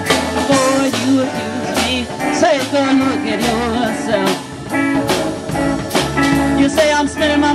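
Live blues band playing: electric guitars, bass, keyboard and drums with a steady beat.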